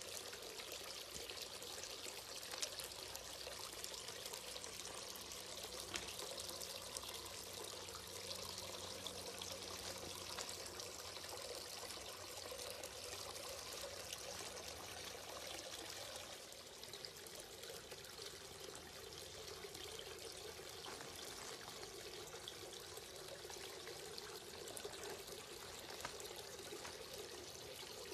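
Water trickling and splashing steadily from the tiered spouts of a Henri Studio Aspire cast stone fountain into its basin. The sound shifts slightly in tone a little past halfway.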